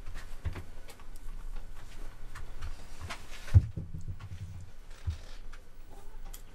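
Light handling sounds and small clicks as a wig is pressed down and adjusted on a person's head, over a low hum, with one sharp thump about halfway through.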